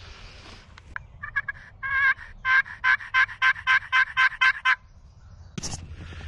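Turkey call sounding a run of about a dozen evenly spaced hen yelps lasting a few seconds. This is the hunter calling to draw in gobblers.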